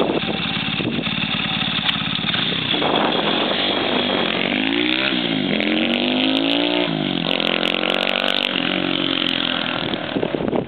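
Stomp Racing monkey bike's small single-cylinder engine pulling away and accelerating hard through the gears. The engine note climbs in pitch, drops suddenly at each gear change and climbs again, three or four times from about four seconds in.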